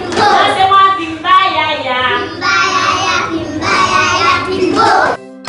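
A group of young schoolchildren singing a song together in class, cutting off suddenly near the end.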